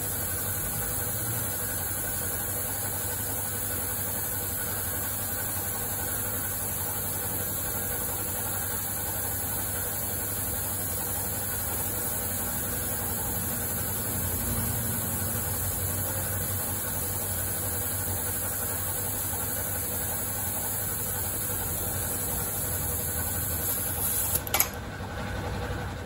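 Steady machine running noise with a high hiss and a low hum. Near the end comes a sharp metallic knock, the loudest moment, and the running noise then cuts off.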